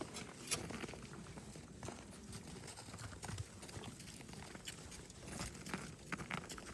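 Faint scattered knocks and shuffling from cattle milling about close by.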